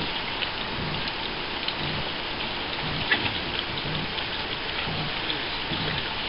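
Small waves lapping and spattering against a small sailboat's hull at the water's edge, a steady rain-like splashing with many small ticks, and a soft low thump repeating about every three quarters of a second.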